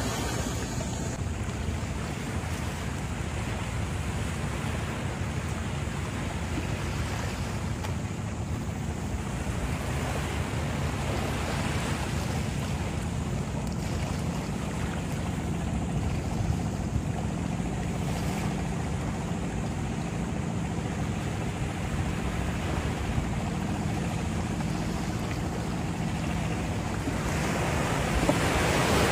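Small waves breaking and washing up a sandy beach, with wind buffeting the microphone and a steady low hum underneath. The surf grows louder near the end.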